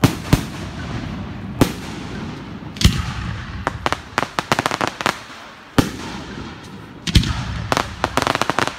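Aerial fireworks bursting: loud, sharp bangs every second or so, then a rapid run of quick cracks near the end.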